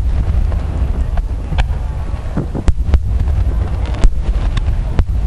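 Aerial fireworks bursting overhead: a string of sharp cracks and bangs, about eight in five seconds, over a steady low rumble with wind buffeting the microphone.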